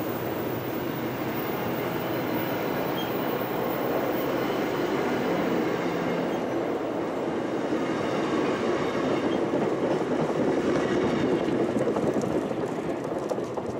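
MBTA commuter train's bilevel passenger coaches rolling past: a steady rumble of wheels on rail that swells a little toward the end.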